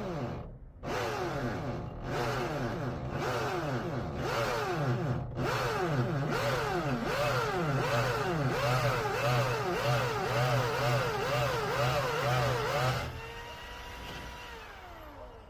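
Hammer drill with a masonry bit boring into concrete. The motor's pitch sags and recovers over and over, more quickly toward the end, as the drilling is kept slow and controlled. Near the end the drill is let off: the motor hums at a steady pitch, then winds down.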